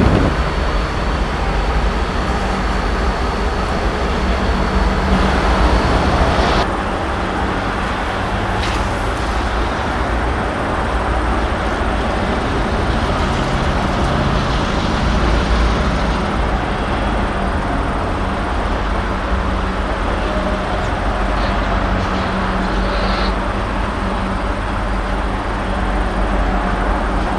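Norfolk Southern diesel locomotive's engine running steadily as it moves along the yard track with covered hopper cars, with a level drone and rolling rail noise.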